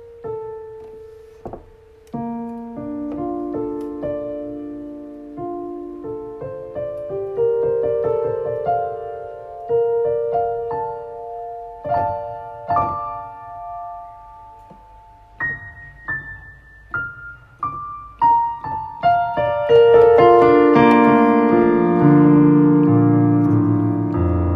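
Solo piano improvisation: slow single notes and broken chords stepping upward, then growing louder and fuller, with low bass notes joining near the end.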